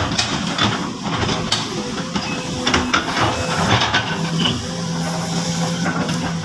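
Sumitomo SH-200 hydraulic excavator working: engine running with a hiss and irregular knocks and clanks, and a steady hum becomes prominent about two-thirds of the way in.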